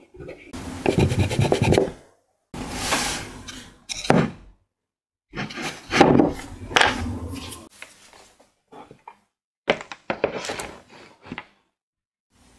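Pencil scratching across the grain of a slice of eucalyptus wood as a design is sketched: close, scratchy strokes in three bursts of a second or two each, then a few shorter, fainter strokes.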